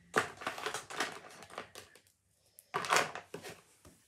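Fidget toys being handled, making two bursts of dense, rapid clicking and crackling. The first lasts about two seconds and the second, shorter one comes near three seconds in.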